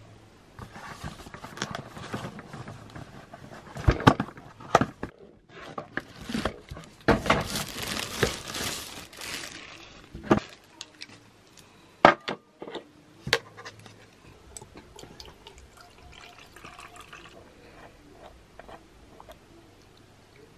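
Handling sounds of a plastic aroma oil diffuser and its box on a hard tabletop: several sharp knocks, and a few seconds of rushing noise in the middle.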